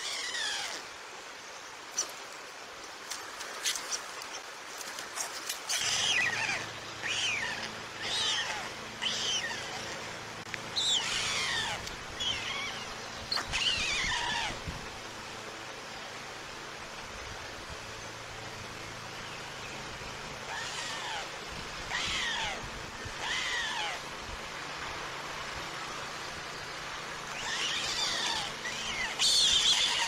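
White stork chicks calling from the nest: high, thin calls that slide down in pitch, coming in clusters of several with pauses between.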